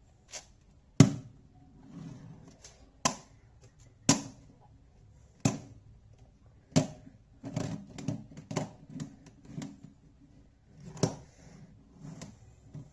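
Plastic puzzle cubes clacking as they are handled and set down. Sharp clacks come one to two seconds apart, with a quick patter of smaller clicks in the middle stretch.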